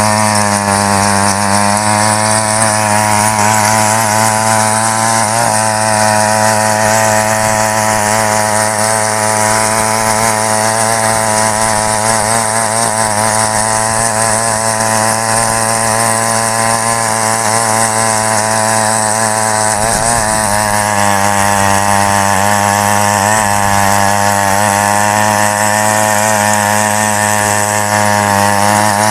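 Small petrol engine of a 68 cc mini weeder running at a steady high speed under load while its rotary tines churn soil. Its pitch dips and wavers briefly about twenty seconds in.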